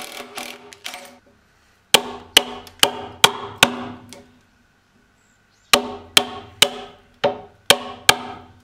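A cordless drill's auger bit boring into a pine beam dies away in the first second. Then a chisel is struck with a hammer in two runs of sharp ringing strikes about half a second apart, five and then six, chopping into the pine.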